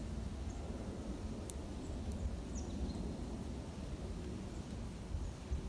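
Outdoor ambience: a steady low rumble with a few faint high chirps and a single sharp tick about one and a half seconds in.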